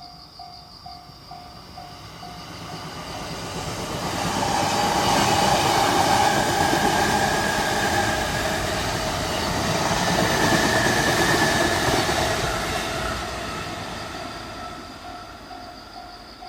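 A train passing over a Japanese railway level crossing. Its noise swells over several seconds, stays loud for about seven seconds, then fades. The crossing's warning bell rings about twice a second; the train drowns it out as it passes, and it is heard again near the end.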